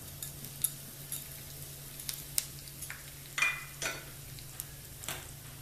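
Cumin seeds and asafoetida crackling in hot ghee in a small tempering pan, a tadka with scattered sharp pops. A couple of louder scraping sounds come about three and a half and four seconds in. A steady low hum runs underneath.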